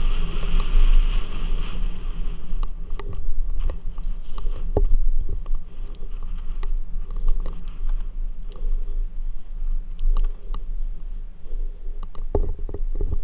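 Mountain bike descending a dirt singletrack: steady wind rumble on the helmet camera's microphone and tyre noise on dirt, with scattered clicks and rattles from the bike over rocks and bumps, several close together near the end.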